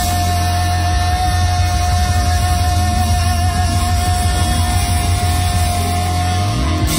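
Live band with a horn section, keyboard, electric guitar and drums playing a rock-soul cover. One long note is held over the band until about six and a half seconds in, then the band moves on.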